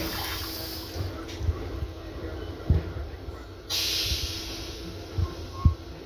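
Inside an M7 railcar: a steady hum with occasional low thumps. There are two bursts of hiss, one at the start and a louder one about four seconds in lasting under a second.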